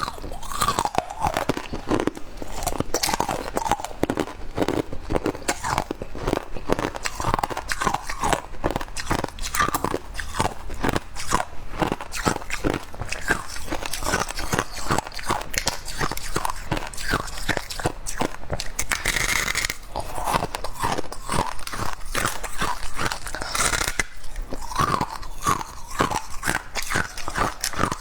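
Close-up mouth sounds of freezer frost being bitten and chewed: a steady run of many quick, crisp crunches.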